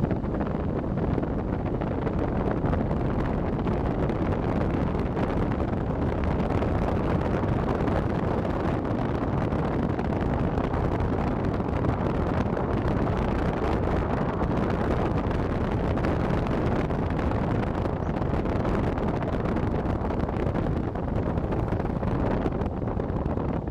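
Steady driving noise of a vehicle travelling along an asphalt road: engine and tyre rumble mixed with wind rushing over the microphone.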